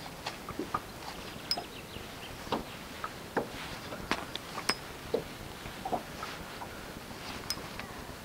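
Irregular light clicks and knocks, a few a second at times, over a steady background hiss.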